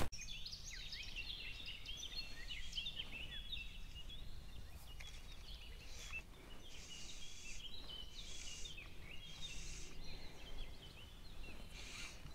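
Songbirds chirping and twittering, a dense run of short quick calls throughout, over a steady low rumble of wind.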